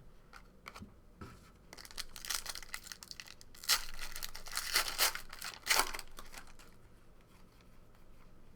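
A trading-card pack wrapper being torn open and crinkled by hand, in a series of rustling tears, loudest between about two and six seconds in.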